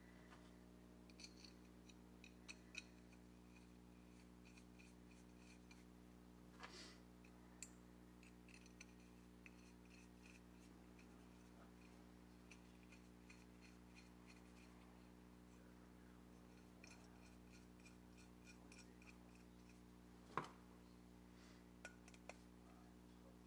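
Very faint light metallic handling: small screws and a steel plate being fitted by hand to a painted metal lathe part, heard as clusters of quick small clicks. There is one louder knock about 20 seconds in, over a low steady hum.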